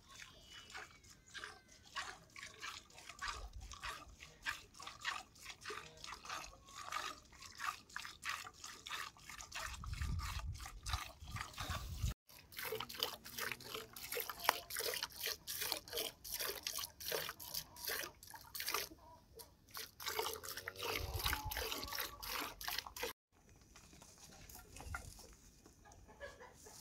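Milk squirting by hand from a cow's teats into a metal pail, in a steady rhythm of about three squirts a second; the squirting stops near the end.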